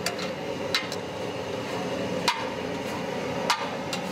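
Metal spatula knocking against a metal cooking pan while cooked mutton offal is scooped and served: four sharp metallic clanks about a second apart, the last two loudest, over steady street-stall background noise.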